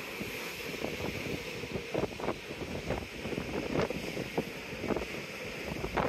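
Wind buffeting the microphone on a ferry's open deck at sea, in irregular gusty thumps over a steady rushing hum from the ship.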